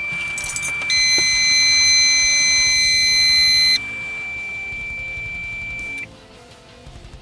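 Electronic warning beeps in a car cabin with the ignition on. A steady high beep sounds until about six seconds in. About a second in, a second, louder and buzzier tone joins it and cuts off after about three seconds.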